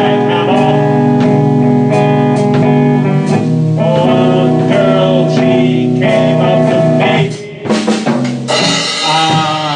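Guitar and drums playing a slow blues jam, the guitar strumming sustained chords over a steady beat. Near the end the playing breaks into a louder, busier passage of drum hits.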